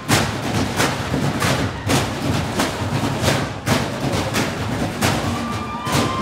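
Percussion ensemble playing on trash cans: sticks beating plastic trash-can bodies and galvanized metal trash-can lids clashed together, in a fast, even rhythm of loud hits. A held ringing tone sounds near the end.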